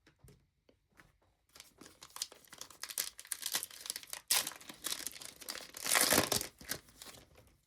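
Foil trading-card pack wrapper being crinkled and torn open. It is a dense run of crackling that starts about a second and a half in and is loudest about six seconds in.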